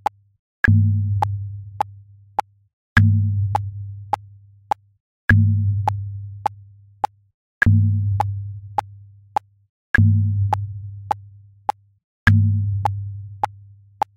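A bass drum booming once every four beats at about 103 bpm, each deep hit ringing and dying away over about two seconds. Short metronome-like clicks mark every beat, the one on the first beat higher-pitched than the other three.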